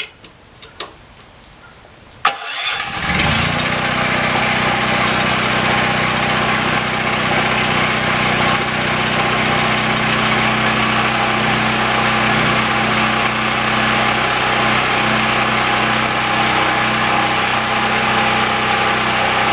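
A brand-new DuroMax 5500E portable generator's engine starting on the first try about two seconds in, a sharp click and a short crank, then running steadily with no load on its first break-in run.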